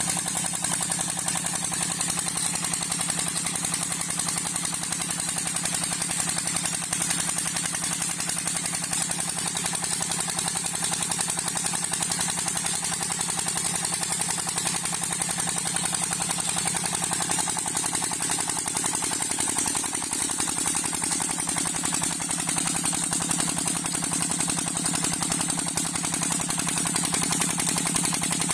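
A 25 HP Petter diesel engine running steadily, driving a tubewell pump, with a fast, even chugging beat.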